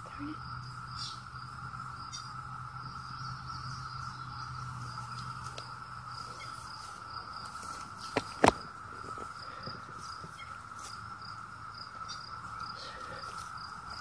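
Chorus of 17-year periodical cicadas (Brood II) droning steadily on one even pitch, with two sharp knocks about eight seconds in.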